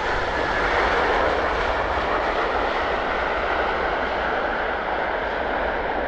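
Steady rushing noise from the four Rolls-Royce Trent 500 jet engines of an Airbus A340-600 that has just landed, its upper range slowly fading.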